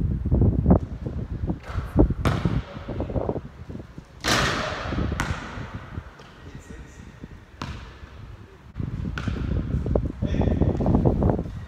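A basketball bouncing on a hard court during one-on-one play: a series of sharp separate bounces a second or so apart, echoing under a metal roof, over low wind rumble on the microphone.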